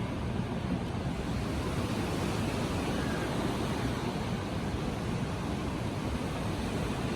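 Ocean surf washing onto a sandy beach, a steady rushing sound with no single wave crash standing out.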